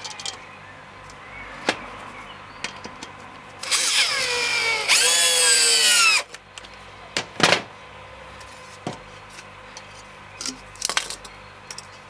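Electric drill driving a wood screw through a washing-machine pulley into a wooden block, in two short runs of about a second each whose pitch sinks as the screw bites. A few knocks and clicks from handling come before and after.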